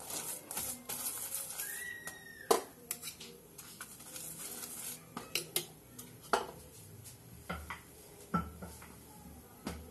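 Scattered clinks and knocks of steel kitchenware and utensils while roti dough is handled, the sharpest clink about two and a half seconds in.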